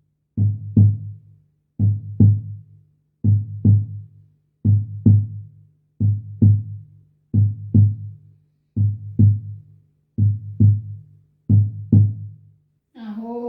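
Cherokee nativo shamanic drum, a closed hand drum with skin on both sides and no beads inside, struck in a steady heartbeat rhythm of paired beats, about one pair every second and a half. It has a deep, muffled tone, with a low hum lingering between the beats. A voice begins just before the end.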